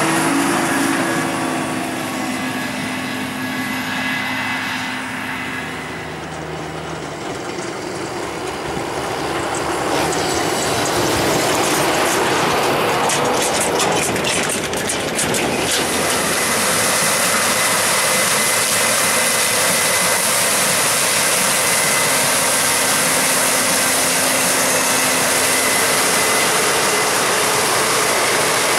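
Heavy harvest machinery with diesel engines running steadily under load. It dips a little in level early on, and a burst of rapid clicking and rattling comes about halfway through.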